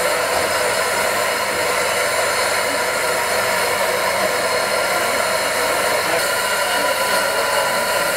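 Steam hissing steadily from the 1896 Dübs & Co locomotive Mount Lyell No. 1, a loud, even rush that does not change.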